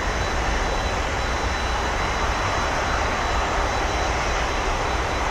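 Distant jet engine noise from a Boeing 747-8F's four GEnx engines during its landing rollout on the runway: a steady, even rumble and hiss with no change in level.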